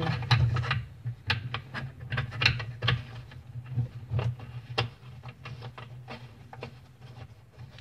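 Irregular small clicks and rattles of a braided stainless-steel supply hose being handled and its coupling nut threaded by hand onto the faucet's cold-water inlet, over a steady low hum.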